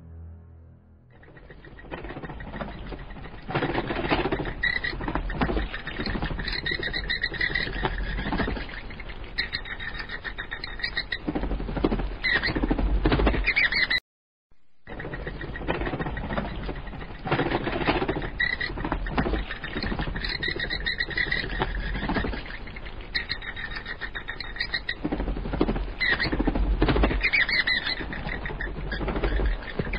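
Looped sound effect of dense animal calls, cutting out for about a second midway and then starting over.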